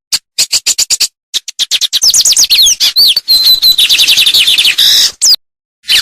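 A songbird singing: a run of quick, sharp chirps, then a fast, dense burst of song with rapid downslurred whistles and a held trill in the middle, breaking off about five seconds in, followed by one more short note.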